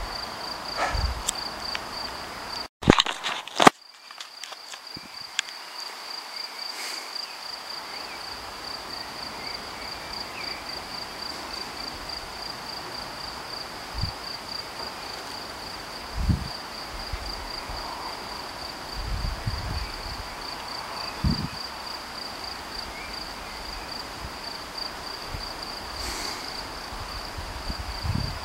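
Crickets chirring: a steady, high, rapidly pulsing trill that never lets up. A few sharp clicks break in about three seconds in, and a few low thumps follow later.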